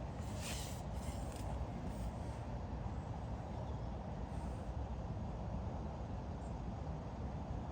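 Steady low rumbling background noise, with a short hiss about half a second in.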